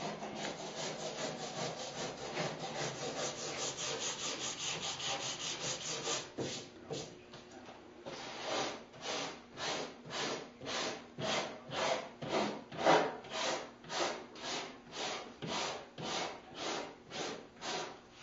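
Long flexible sanding board with sandpaper being pushed back and forth across a car hood: block-sanding the bodywork to find high and low spots. The strokes come quick and short at first, then from about eight seconds in slow down to long, even strokes about twice a second.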